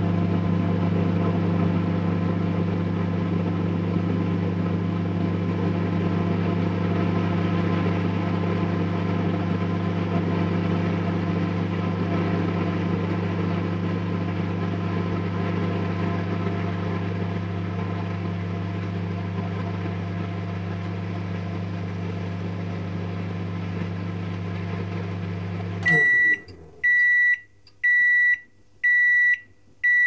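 Microwave oven running with a steady electrical hum that cuts off near the end, followed by a series of high beeps about a second apart, signalling that the heating cycle has finished.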